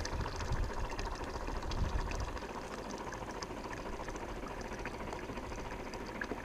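Quiet steady background ambience: a low rumble and hiss with a few faint ticks, the rumble a little stronger for the first two seconds or so.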